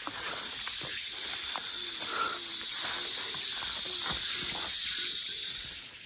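Steady high-pitched hiss of an insect chorus in summer woodland, with a few faint ticks; it drops away near the end.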